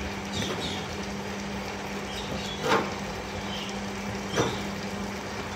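Front-loading washing machine running with a steady hum. Two short knocks stand out, a little under three seconds in and again about a second and a half later.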